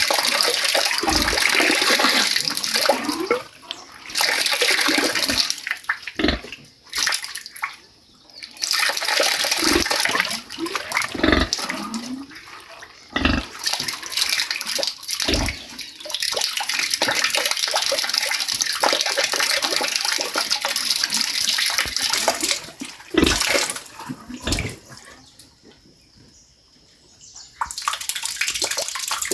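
Water falling and splashing in a steady rush that stops briefly several times and starts again, with a few low knocks.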